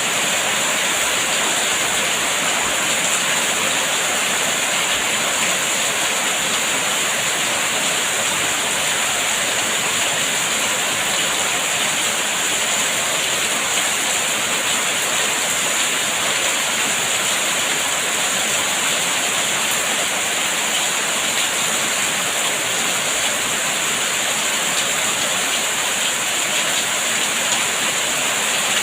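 Steady rain falling, an even, unbroken hiss that holds at the same level throughout.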